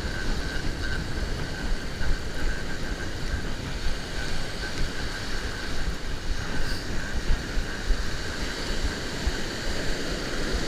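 Surf breaking and washing up a sand beach, with wind buffeting the microphone in uneven gusts.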